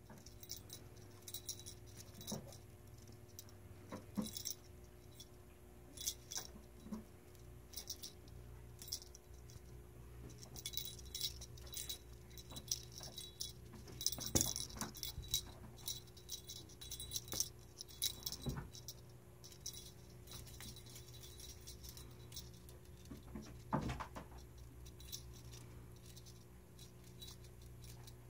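A young kitten playing with a ribbon wand toy on a cloth sheet: irregular light rattles, jingly clicks and rustling, with the sharpest clicks about halfway through and again near the end, over a faint steady hum.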